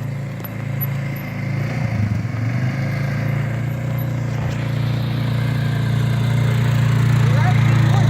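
An engine running steadily, getting louder over the last few seconds.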